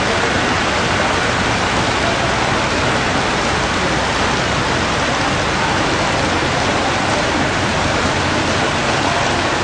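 Heavy rain pouring steadily onto a flooded street, a constant even hiss of falling and splashing water.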